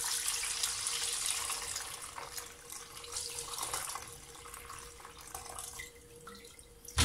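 Cornelian cherry liqueur poured from a large glass jar through a cloth-lined plastic strainer into a bowl: a stream of liquid splashing into the strainer, heavy at first and tapering to a trickle after a few seconds. A short knock comes at the very end.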